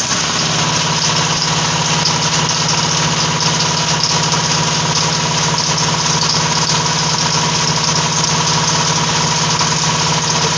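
A machine running loudly and steadily: a constant hum with a strong hiss above it.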